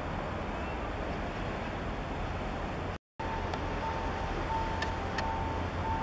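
Outdoor harbour ambience: a steady low rumble of wind and distant engines, broken by a brief dropout about halfway. After it, a high, steady-pitched tone comes and goes in short dashes, with a few faint ticks.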